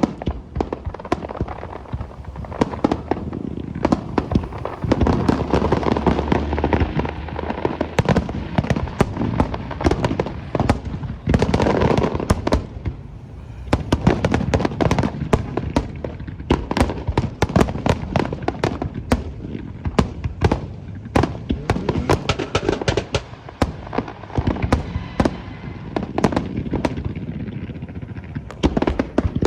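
Fireworks display: a dense, continuous run of sharp bangs and crackles, many per second, easing briefly a couple of times.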